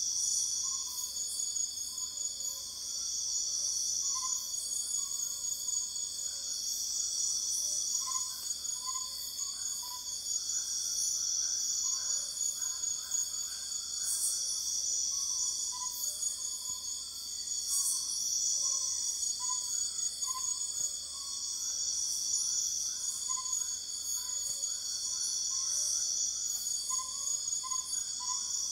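Night-time jungle insect chorus: several insects trilling steadily at high pitch, one of them swelling and fading about every two seconds. Short, lower chirps and chattering calls from other animals are scattered through it.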